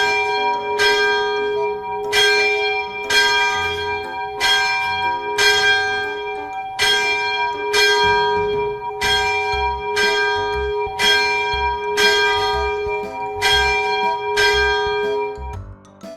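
A single bell struck over and over at an even pace, about once every three-quarters of a second. It keeps the same pitch on every strike and rings on between strikes. The ringing stops near the end.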